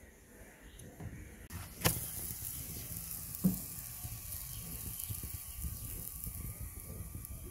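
Flatbread sizzling on a hot iron tawa over a dung-cake fire: a steady hiss that sets in about a second and a half in. A sharp click comes just after, and a dull knock about three and a half seconds in.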